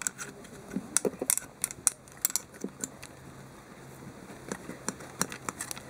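Irregular small clicks and taps of a bent screwdriver and hands working a rubber intake boot onto a motorcycle carburettor.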